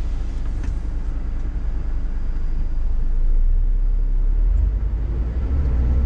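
Cab interior of a Scania S500 truck on the move: a steady low rumble from its diesel engine and the road, growing louder about halfway through.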